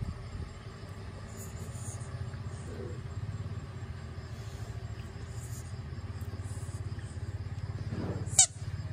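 A dog's rubber squeaky ball gives one sharp, wavering squeak near the end as the Shiba Inu bites down on it. Under it runs a low, steady rumble.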